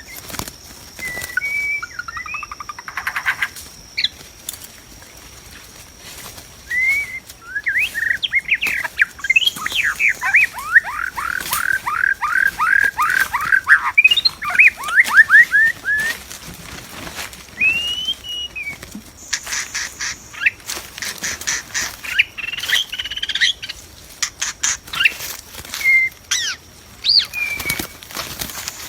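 White-rumped shama calling and singing: scattered whistled and chattering notes, with a rapid run of down-slurred notes, about five a second, in the middle, and short clicks or flutters between them.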